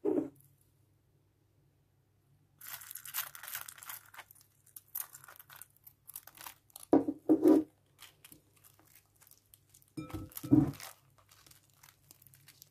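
Wet green slime made from a powder-and-water kit, squeezed and stretched by hand in a glass bowl: sticky crackling and tearing, with a few louder squelches about seven seconds in and again near ten seconds.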